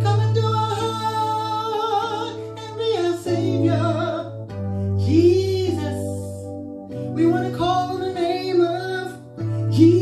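A woman singing a worship song, accompanying herself on a Yamaha electronic keyboard that holds sustained chords, changing chord every few seconds.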